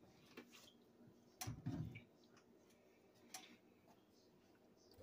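Near silence: kitchen room tone with a few faint clicks and a soft knock about a second and a half in.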